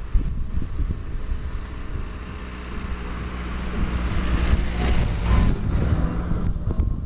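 Low rumble of a motor vehicle that swells to its loudest about five seconds in and then falls away.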